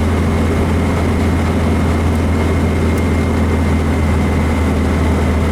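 Air-cooled 1776 cc VW flat-four engine running steadily with the car under way, a constant low drone mixed with road noise inside a VW Beetle's cabin.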